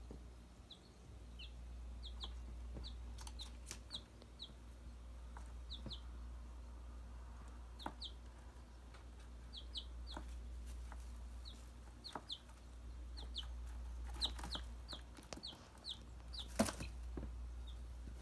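Week-old chicks peeping in short, scattered chirps, with a few light taps and clicks and one sharp knock near the end, over a steady low hum.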